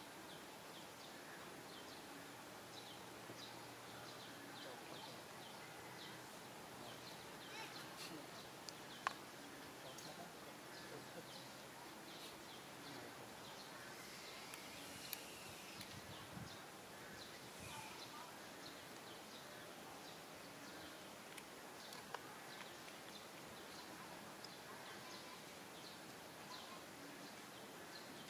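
Faint outdoor ambience: a steady low hiss with many short, high bird chirps scattered throughout, and a few sharp clicks, the loudest about nine seconds in.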